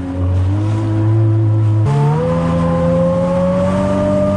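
Jet ski engine running under throttle. Its pitch steps up suddenly about two seconds in, then keeps rising slowly as the craft accelerates.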